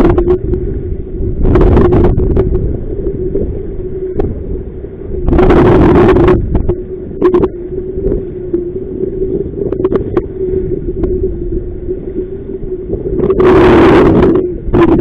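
Strong wind buffeting the microphone as low rumbling noise, with three heavier gusts about a second and a half, five and a half, and thirteen and a half seconds in, over a steady low hum.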